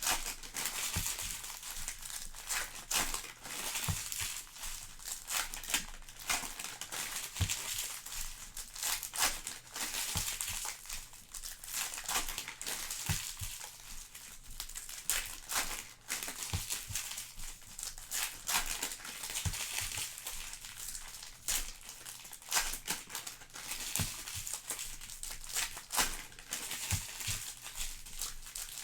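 Trading-card pack wrappers crinkling and tearing as packs are opened and cards are handled, in irregular short crackles.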